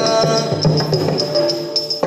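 Indian classical dance accompaniment music: a sustained melody line over regular light metallic strikes that keep the beat.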